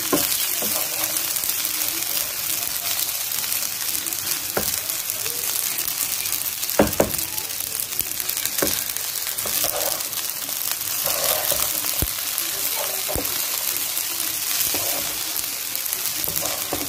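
Fusilli pasta with peas sizzling steadily in a frying pan as a wooden spoon stirs it, with a few sharp knocks of the spoon against the pan.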